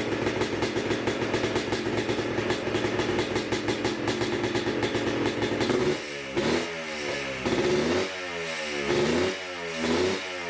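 Yamaha Blaster's 195 cc single-cylinder two-stroke engine idling steadily, then blipped up and back down about four times in quick succession, starting a little over halfway through.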